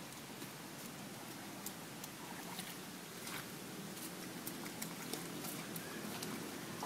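Light rain outdoors: a faint, steady hiss with a few scattered soft taps.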